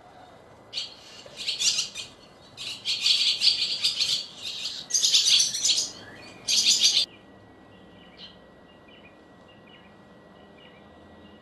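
Barn swallow nestlings begging as a parent comes to the nest to feed them: a loud chorus of high-pitched chirping in about five bursts over some six seconds, then only faint scattered chirps.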